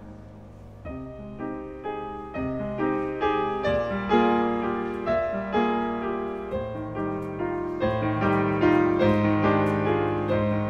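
Grand piano playing a flowing phrase of struck notes and chords over a held low bass note, entering softly about a second in and growing louder.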